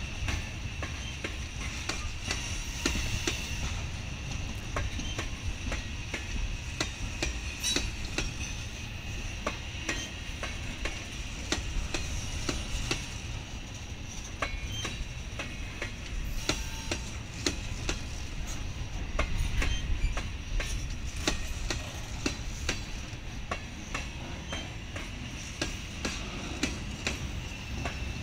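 Freight cars rolling steadily past on jointed track: a continuous low rumble with frequent irregular clicks of wheels over rail joints and a thin, steady high-pitched whine from the moving train.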